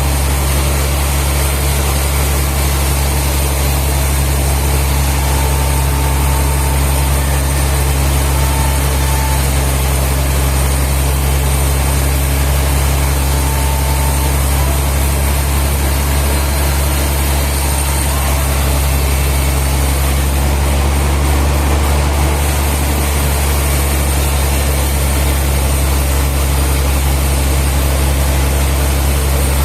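Sawmill machinery running steadily: a deep, continuous engine-like hum that stays level throughout.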